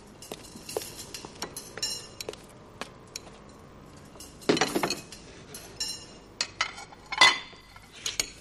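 Cutlery and dishes clinking: a scattering of sharp clinks, with louder clusters about four and a half seconds in and again about seven seconds in.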